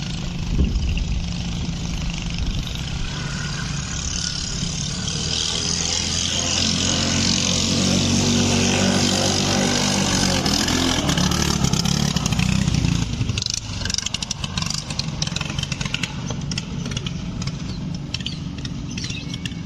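Yamaha engine of a small fiberglass racing boat at full throttle as the boat speeds past, its note swelling to a peak and then dropping off suddenly. After that comes a lower rumble with crackling noise.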